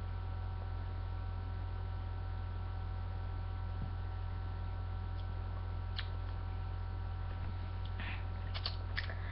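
Steady electrical mains hum, low with several steady higher tones above it, broken only by a faint click about six seconds in and a few small clicks near the end.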